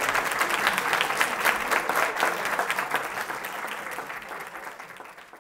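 Audience applauding, the clapping thinning and fading away over the last couple of seconds.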